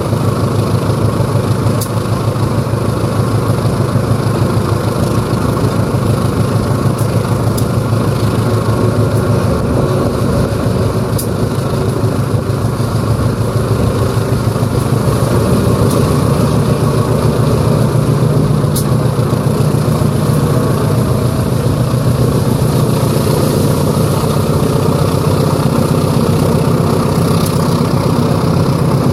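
A CC 203 diesel-electric locomotive's GE 7FDL-8 diesel engine accelerating a train, together with its traction motors. The engine makes a steady throbbing rumble that gets louder about fifteen seconds in as the throttle is notched up.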